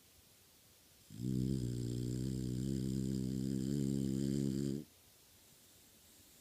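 One long snore with a steady low pitch, starting about a second in and lasting about three and a half seconds.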